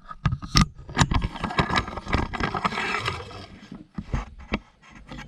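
Aluminum ramp being handled and set in place: a string of knocks and clanks, with scraping from about one to three and a half seconds in.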